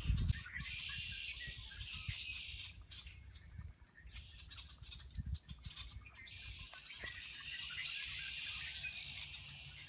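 A flock of small birds chirping and chattering all together in a dense chorus. It thins out for a few seconds in the middle and swells again near the end.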